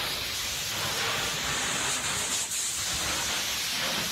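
Firefighter's hose nozzle spraying water into a smoke-filled burning room: a steady hiss, with a brief dip about two and a half seconds in.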